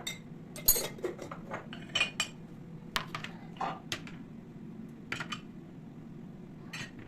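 Dishes and cutlery clinking and knocking as tableware is handled: a dozen or so light, irregular clinks, most of them in the first five seconds, with one more near the end.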